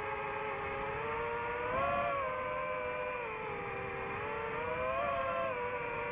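DJI FPV drone's motors and propellers whining, heard through its onboard microphone. Several close tones rise together with the throttle about two seconds in and again near five seconds, then drop back.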